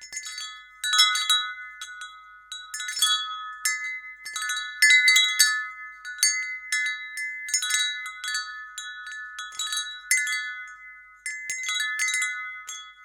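Metal wind chime tubes being struck again and again, a cluster of a few bright pitches ringing and overlapping with irregular strikes roughly every half second.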